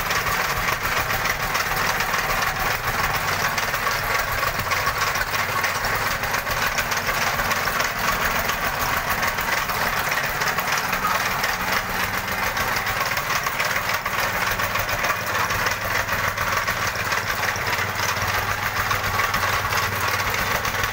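Small petrol engine of a tamping rammer running steadily, its foot pounding the gravel in a rapid, even stream of knocks. The rammer is running abnormally, which the uploader says leaves the compaction poor.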